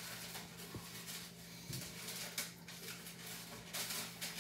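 Quiet kitchen room tone: a faint steady hum with a few soft clicks.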